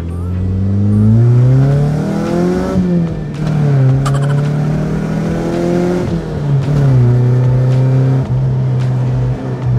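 Mitsubishi Eterna GTi's 2.0-litre four-cylinder engine accelerating hard through an aftermarket NDK Pro Series exhaust, heard from inside the cabin. The revs climb, fall back at an upshift about three seconds in, climb again, fall at a second upshift about six seconds in, then hold steady. The note is smooth.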